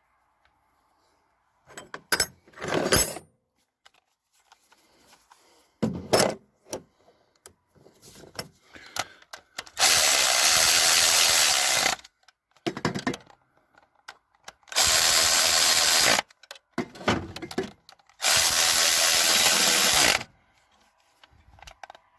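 Power drill or driver running bolts down in three steady bursts of about two seconds each, with clinks and knocks of tools and parts between; the bolts are being run in before they are torqued on the aluminium throttle-body unit.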